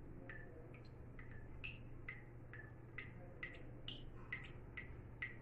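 Water dripping from a tap: faint single drops falling irregularly, about three a second, each a short high drip.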